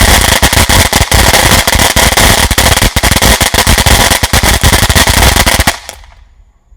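Ground fountain firework burning loudly: a hissing spray packed with rapid sharp crackles, which dies out suddenly a little before the end.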